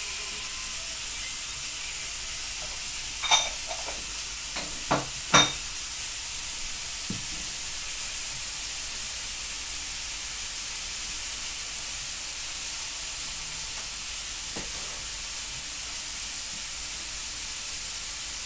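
Steady sizzling hiss of food frying in a pan, with a few sharp knocks about three to five seconds in.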